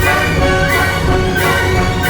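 Soundtrack music with a steady beat.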